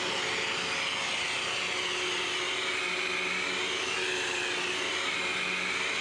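Hoover Elite bagless upright vacuum cleaner running steadily while being pushed over carpet. Its motor whine holds several steady lower tones, and a high whine slowly rises and falls in pitch.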